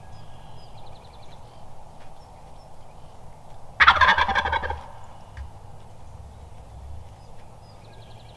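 A wild turkey tom gobbles once at close range: one loud, rattling gobble about four seconds in, lasting about a second. Small songbird trills are heard faintly near the start and the end.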